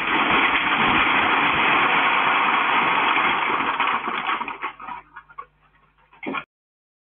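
Old wooden barn and its tiled roof collapsing in an earthquake: a long, loud crashing and crunching of timber and tiles that lasts about four seconds and then dies away. A short clatter follows before the sound cuts off.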